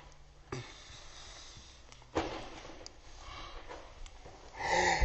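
A few soft thumps and rustles as a toddler pushes a cushion down onto someone's head, with a brief high voice near the end.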